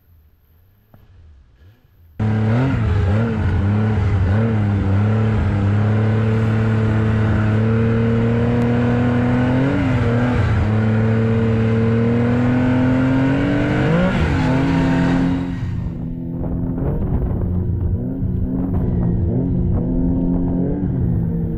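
Snowmobile engine running along the trail, its pitch rising and dipping with the throttle. It starts abruptly about two seconds in and becomes somewhat quieter near the end.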